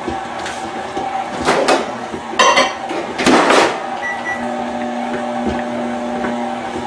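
A KitchenAid Classic stand mixer runs steadily, kneading bread dough with its dough hook. In the middle come a few loud knocks and clatters, then a short beep, and a microwave oven starts up with a steady hum of its own.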